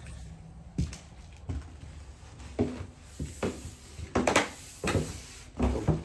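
Footsteps: a series of separate knocks and scuffs about every half second to second, loudest a little past the middle.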